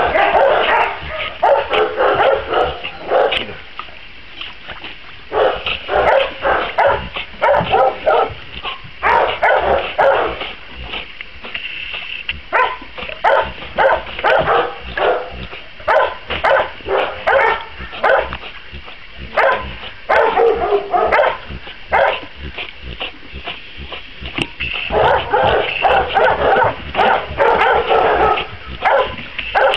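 Rottweiler making short, repeated vocal sounds in clusters of several a second, with a few brief pauses, while it swims in a harness.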